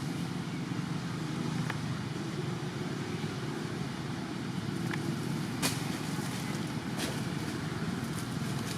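Steady low rumble like distant road traffic, with a few brief sharp clicks.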